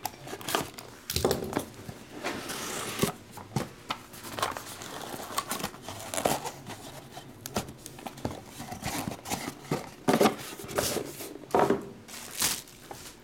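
Plastic shrink-wrap crinkling and tearing and a cardboard trading-card box being handled and opened, in irregular rustles, rips and taps.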